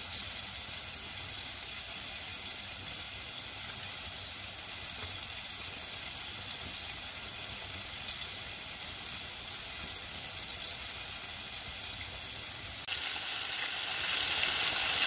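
Flour-coated chicken and potato fries deep-frying in hot oil in saucepans: a steady sizzling hiss, which jumps louder about thirteen seconds in and keeps rising.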